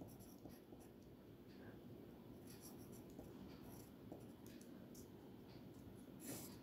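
Faint scratching of a pencil writing on paper in short strokes with small pauses. The pencil tip is freshly sharpened to a long point.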